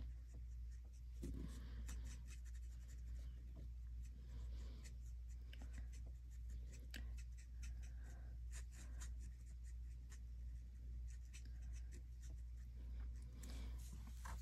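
Marker tip scratching lightly across cardstock in short, irregular strokes as small stamped flowers are coloured in, over a steady low hum.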